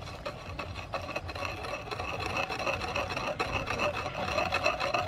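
Wooden pestle grinding chili, garlic, sugar and fish sauce into a wet paste in a large wooden mortar: a steady rasping rub of wood on wood, growing louder toward the end.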